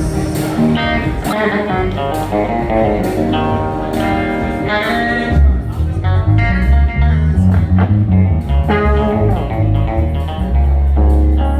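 A live band playing: electric guitar lines over drum hits, with a bass guitar coming in strongly about five seconds in.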